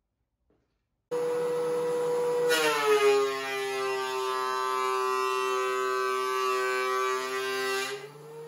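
Benchtop thickness planer running, starting abruptly about a second in with a steady whine. A board feeds in about two and a half seconds in, and the motor's pitch drops as the knives cut under load; near the end the pitch rises again as the board comes out.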